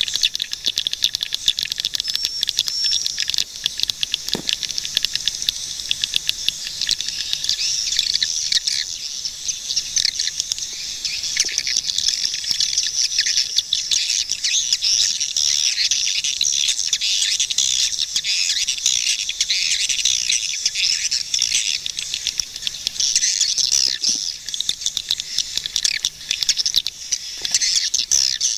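Many swiftlets chirping and twittering at once, a dense unbroken chorus of quick high-pitched chirps.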